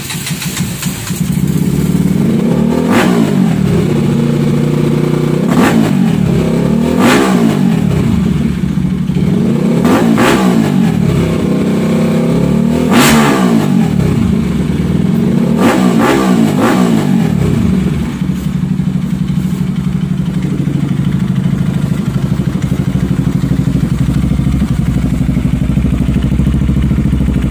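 RS200 motorcycle engine blipped hard about seven times through an aftermarket slip-on muffler with its silencer insert removed, then settling to a steady idle for the last third.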